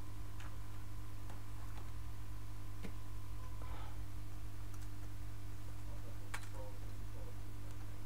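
Steady electrical hum with a faint high-pitched whine, and a few small sharp clicks and taps scattered through it.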